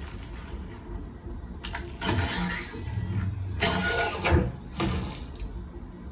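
Film soundtrack effects played back through a hi-fi system: a steady low rumble with several sudden louder surges, of the kind PANN hears as engine and vehicle sounds.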